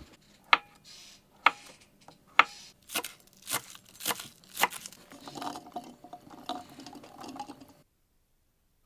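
A series of sharp knocks, about one every half second to a second, then a softer stretch of crinkling and rustling that stops abruptly.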